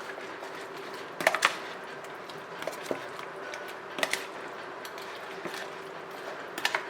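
A spoon clicking and tapping against a bowl as curd is added to a chicken marinade: a quick cluster of taps about a second in, single clicks near three and four seconds, and a pair near the end, over a faint steady hum.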